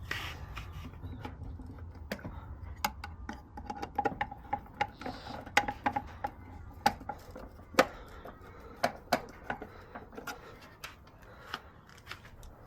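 Irregular sharp clicks and taps of hand work on small metal parts, over a low steady hum, with a brief squeaky tone about four seconds in.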